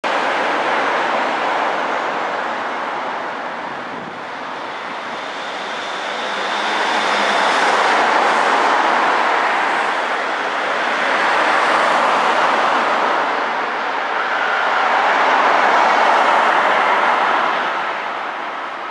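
Traffic noise from passing vehicles, swelling and fading in several waves as they go by.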